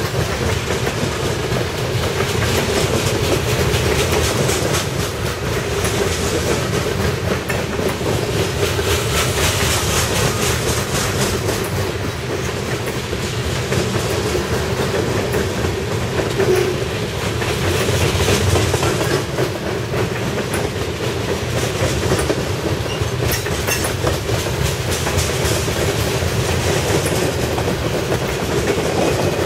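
Freight train tank cars and covered hopper cars rolling past at speed: a steady rumble of steel wheels on rail with a continuous run of clicks from the wheels.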